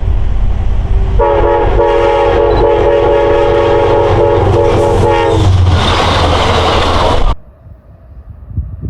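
Long Island Rail Road diesel train passing with a low rumble while its locomotive sounds a multi-note horn for about four seconds, with a few brief breaks. The horn gives way to a loud rushing noise of the passing train, and the sound then cuts off abruptly.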